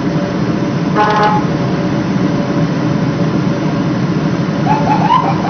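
Police patrol car running, a steady engine and road noise with a low hum, as it follows a vehicle to pull it over. About a second in comes a short beep-like tone, and near the end a brief wavering pitched sound.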